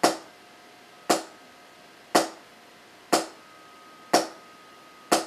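Single strokes with a drumstick on a drum, played slowly and evenly about once a second, six hits, each with a sharp attack and a short ring.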